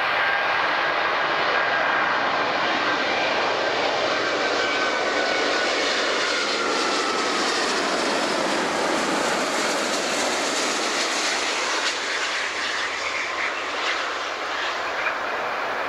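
Airbus A350's twin Rolls-Royce Trent XWB turbofan engines at approach power as the airliner passes low and lands: a steady jet rush with a whine that slowly falls in pitch.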